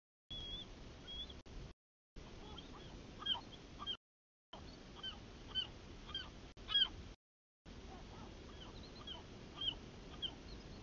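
Bald eagles calling: a run of short, high-pitched chirping notes, repeated many times, which the uploader takes for a parent and possibly the young eagle. Faint steady hiss underneath, and the sound drops out completely for a moment several times.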